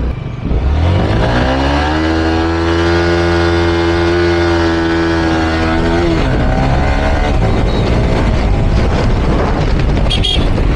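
Yamaha R15M motorcycle's single-cylinder engine under way, rising in pitch about a second in and holding steady. About six seconds in it drops off as the throttle closes, leaving a rougher engine and road noise.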